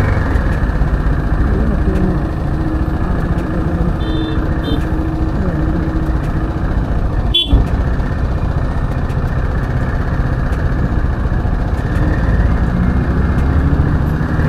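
Motorcycle being ridden on a road: the engine runs under a steady loud rush of road and wind noise. Two short high beeps come about four seconds in, and a sharp knock about seven and a half seconds in.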